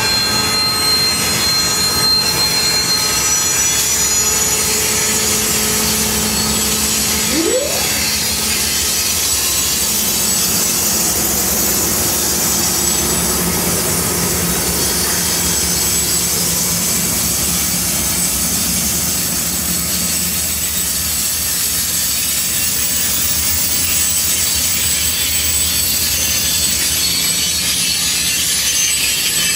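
Amtrak passenger train rolling past at close range: the P40 diesel locomotive goes by first, then the coaches, with steady loud wheel-on-rail noise and a low hum. A brief rising tone comes about seven seconds in.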